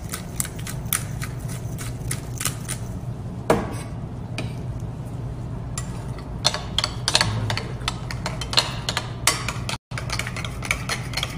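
Quick clicks and light clinks of a utensil against a glass mixing bowl as crushed pepper and spices go into a yogurt marinade and it is mixed, over a steady low hum.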